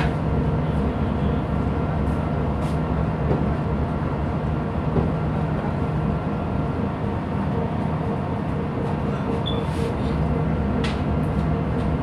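A ship's engine and machinery running with a steady low drone and hum, with a few faint clicks.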